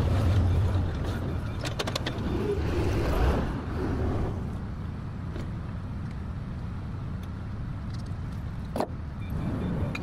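Forklift engine running as the forklift pulls away, its rumble easing off after about four seconds and carrying on quieter. There are a few sharp clicks near two seconds in and one more near the end.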